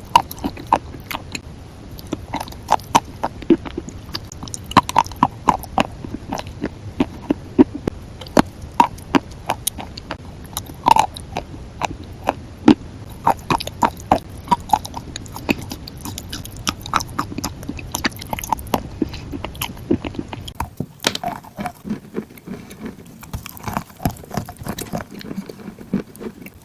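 Close-miked chewing of crunchy food: dense, irregular crisp crackles and crunches with each bite. About 20 seconds in the background drops away and the crunching becomes softer and sparser.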